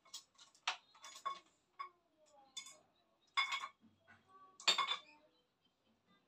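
Dishes and cutlery clinking: an irregular run of sharp clinks and knocks with a brief ringing tone. The loudest two come about three and a half and nearly five seconds in.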